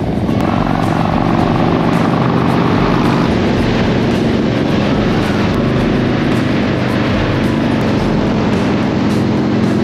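Harley-Davidson V-twin motorcycle engine running steadily at highway speed, with wind rushing past.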